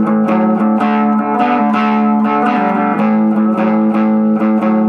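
Electric guitar playing a blues riff through a home-built Fender 5F1 Champ valve amplifier: a steady run of picked notes over a low note held throughout.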